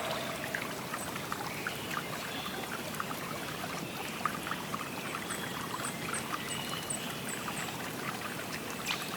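River water flowing and trickling steadily, with many small splashes and drips. About halfway through, a faint run of short high chirps repeats about four times a second for a couple of seconds.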